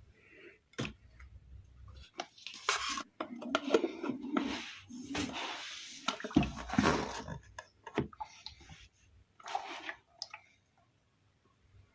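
Hands handling a plastic paintbrush rinser: scattered clicks and knocks, with a few seconds of rough rustling or swishing in the middle.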